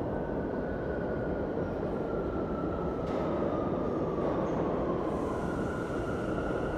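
R179 subway train approaching the station: a steady low rumble with a thin high whine that slowly falls in pitch, then a second steady whine from about five seconds in.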